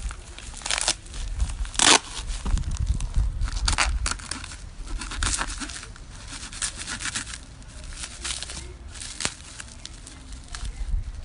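Yellow padded mailer being cut and torn open by hand with a small knife: paper and packing tape ripping and crinkling in short, irregular tears, the loudest rip about two seconds in.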